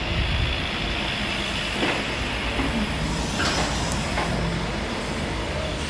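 A moving truck's engine running steadily nearby, a low rumble mixed with street noise.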